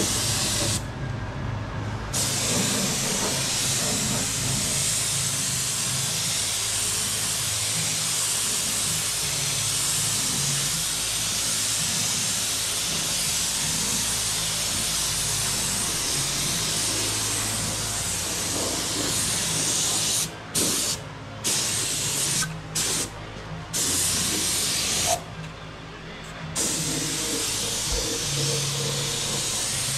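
Gravity-feed spray gun spraying primer, giving a steady hiss of air and atomised paint. About two-thirds of the way in the trigger is let off several times briefly, then for about a second, before spraying resumes.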